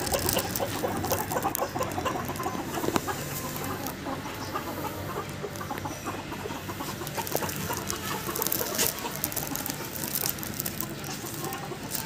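Silkie chickens clucking as the flock walks along.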